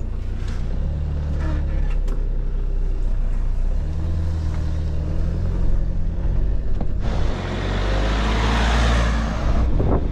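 Fiat Ducato van's diesel engine pulling away and accelerating through the gears, heard from inside the cab, its drone dipping and picking up again at the gear changes. A broad rush of noise joins it about seven seconds in and drops away shortly before the end.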